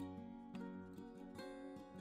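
Quiet background music of plucked-string notes picked one after another.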